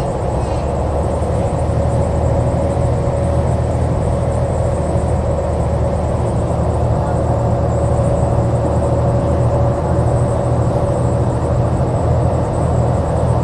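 New Flyer XDE60 Xcelsior articulated hybrid bus, with a Cummins ISL9 diesel and Allison H50 EP hybrid drive, running heard from on board. It makes a steady low drone with a steady whine above it.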